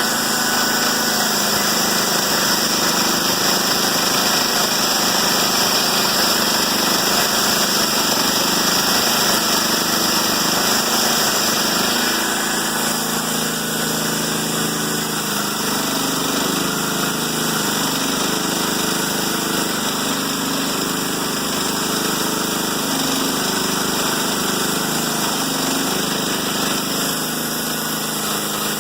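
Chainsaw engine on a chainsaw mill running steadily, its pitch shifting a little about 12 and 15 seconds in.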